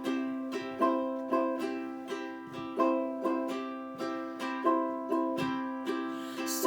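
A plucked string instrument strumming chords in a steady rhythm, a song accompaniment.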